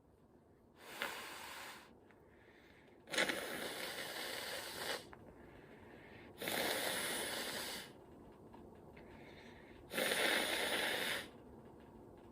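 A person's noisy breaths through the nose, four in all, each one to two seconds long, while a twisted paper string tickles the nose to bring on a sneeze.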